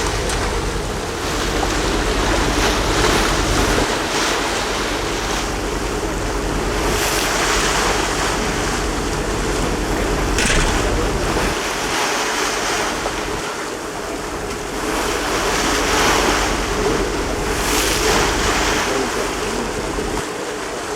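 Loud rushing roar of a large waterfall and its spray close by, with wind buffeting the microphone in gusts and a faint steady boat engine hum underneath.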